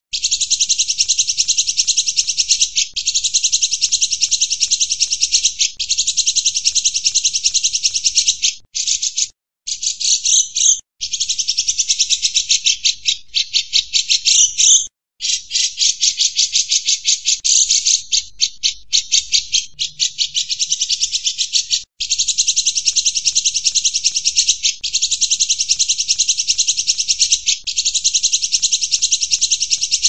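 Grey-cheeked bulbul (cucak jenggot) in full song: a loud, fast, continuous chattering trill of rapid high-pitched notes, in long bouts broken by brief pauses.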